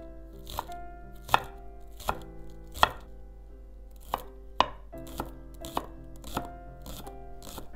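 Chef's knife chopping green onions on a wooden cutting board: about ten sharp knocks of the blade on the board, unevenly spaced.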